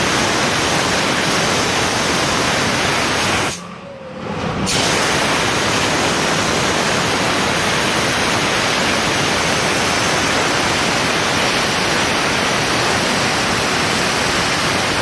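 Steam cleaner nozzle blasting a steady, loud hiss of steam onto a motorcycle windscreen to loosen its protective plastic film. The steam cuts off for about a second, three and a half seconds in, then comes back on.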